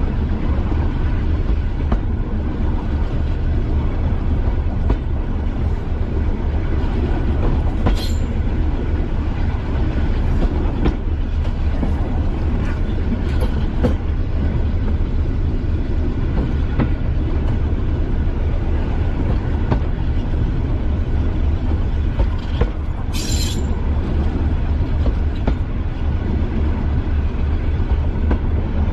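Class 205 'Thumper' diesel-electric multiple unit running along the line, its four-cylinder English Electric diesel giving a steady, deep pulsing thump, with wheels clicking over the track. There are brief sharp high sounds about 8 seconds in and again about 23 seconds in.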